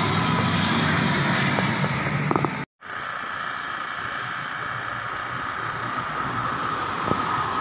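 ATR 72-600 turboprop flying low on approach, a steady engine drone with a high whine, cut off abruptly about two and a half seconds in. After a brief gap comes the fainter, slowly growing sound of an Airbus A320's jet engines approaching from a distance.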